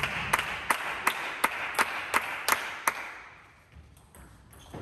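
Spectators' applause dying away, with one pair of hands clapping in a steady rhythm of about three claps a second until about three seconds in.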